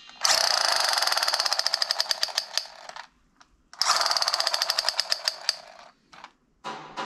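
A toy gun's rapid-fire rattle: two bursts of very fast clicking, about three and then two seconds long, each slowing toward its end.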